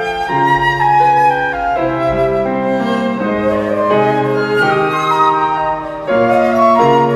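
Flute ensemble music: several flutes playing held notes together in harmony, moving from chord to chord at a slow pace, with lower notes underneath.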